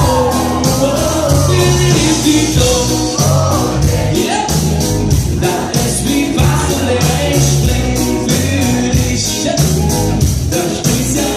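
Live rock band playing a song, with a steady drum beat, bass and a sung melody.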